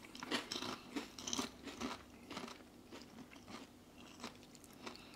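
Two people chewing Wotsits, crunchy puffed-corn cheese snacks, with their mouths close to the microphone: a run of short, irregular crunches, more frequent in the first two seconds and thinning out after.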